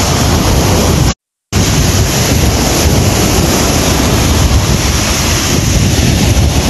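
Strong wind buffeting the phone's microphone over waves breaking and washing up a sandy lagoon shore, a steady loud rush. The sound cuts out completely for a moment about a second in.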